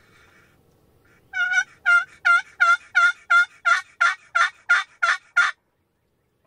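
Turkey yelping: a run of about a dozen loud yelps at roughly three a second, ending abruptly.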